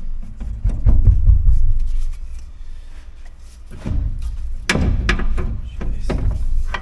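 Workshop knocks and clanks of hand tools on metal while a car's suspension ball joint is being worked on: a low rumble for about the first two seconds, then a run of irregular sharp knocks in the second half.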